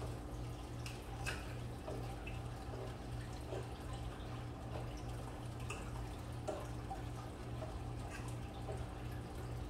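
Bacon crackling and popping in a metal baking pan as it is turned, with scattered light ticks of a utensil against the pan, over a steady low hum.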